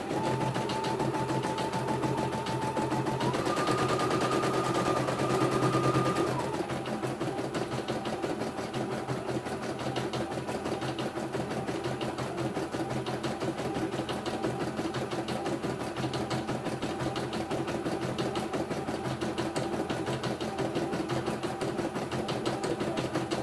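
CNY E900 computerized embroidery machine stitching, its needle bar going up and down in a rapid, even chatter. For the first six seconds a steady high whine runs along with it, stepping up in pitch about three seconds in and then stopping.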